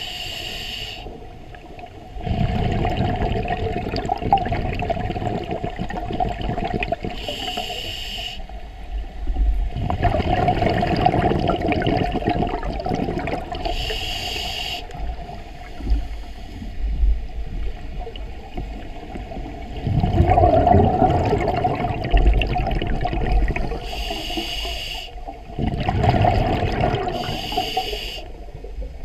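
Scuba diver breathing through a regulator underwater: short hissing inhalations from the regulator alternate with longer spells of exhaled bubbles bubbling out, about five breaths in all.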